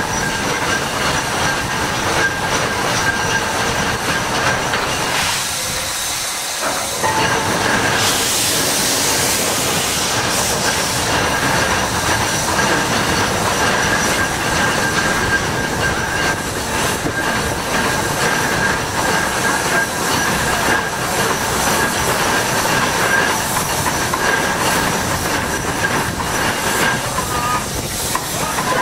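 Ruston steam excavator working: its steam engine and gearing running with a continuous rapid mechanical clatter and steam hissing. A louder rush of hiss comes about eight seconds in and lasts a couple of seconds.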